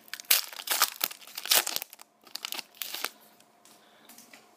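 Wrapper of a hockey trading card pack being torn open and crinkled in quick, crackly bursts, dying down to faint rustles about three seconds in.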